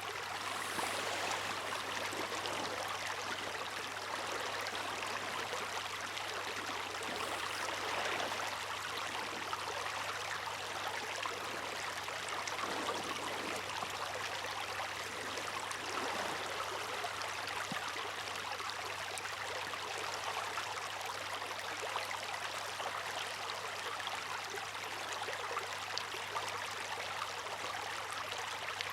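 Steady rushing and splashing of moving water, swelling slightly every few seconds.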